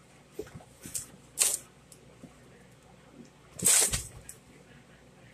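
Empty cardboard soda box scraping and rustling as kittens pounce on and bat at it: a few short scuffs, with two louder bursts about one and a half seconds in and near four seconds in, the second ending in a low thump.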